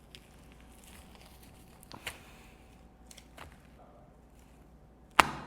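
Hands squeezing a fluffy foam slime: quiet squishing with faint crackles, and one sharp knock near the end.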